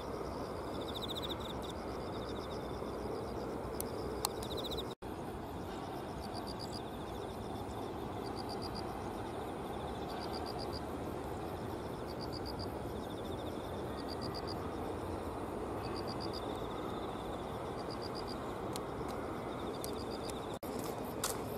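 Insects chirping in the riverside grass: short, finely pulsed trills that repeat every second or so over a steady outdoor hiss. The sound drops out for an instant about five seconds in.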